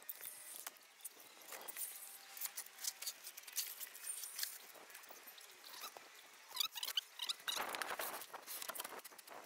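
Sheet-metal chimney roof flashing being handled and set down on asphalt shingles: scattered light clicks and metallic rattles, a few brief squeaks, then a louder scraping rub about eight seconds in as the metal slides into place.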